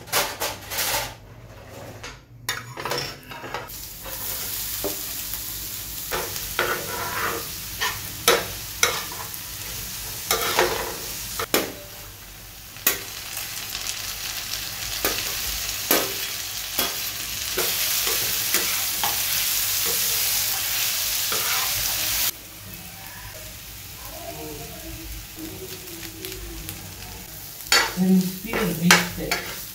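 Chopped onion and tomato frying on a flat chapati tawa, making a steady sizzle, while a spatula scrapes and taps on the pan again and again. The sizzle is louder for a few seconds past the middle, then drops off suddenly.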